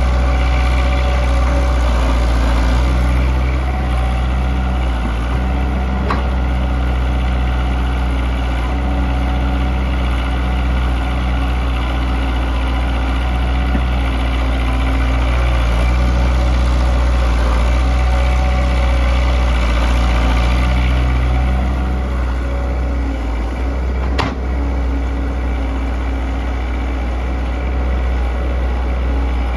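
Kobelco SK100-1 excavator's diesel engine running, its note shifting a few times as it works. Two sharp knocks cut through it.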